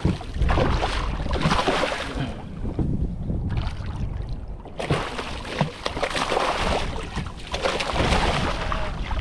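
Wind gusting across the microphone over water sloshing around a small boat, with a few short knocks.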